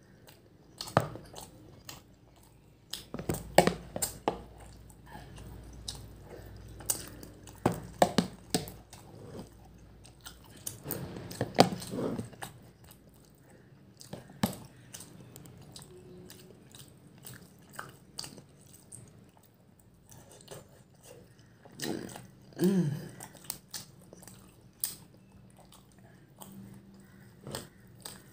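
Close-up chewing and mouth noises of a person eating soft meatballs in gravy, with scattered sharp clicks of a metal fork and knife against a plastic tub.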